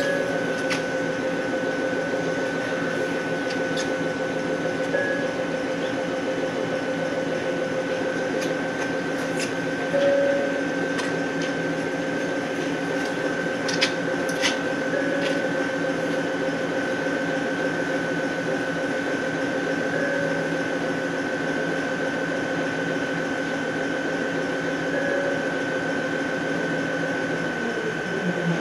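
Steady electrical hum and whine of a standing electric train's onboard equipment, with faint short blips about every five seconds and a few light clicks. Near the end the tones slide down in pitch and stop.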